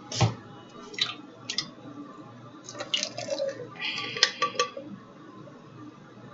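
A can of chickpeas and kitchen dishes being handled: scattered knocks and clinks, with dripping liquid. The clinks bunch up about three to four and a half seconds in.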